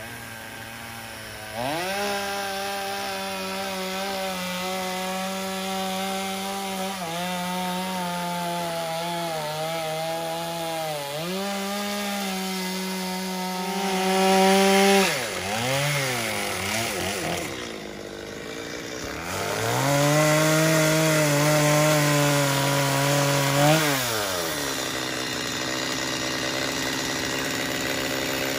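Stihl two-stroke chainsaw running at full throttle while cutting a wooden piling top, its pitch sagging slightly under the load. About halfway through it revs up and down off the cut. It then cuts again, and its pitch falls away near the end.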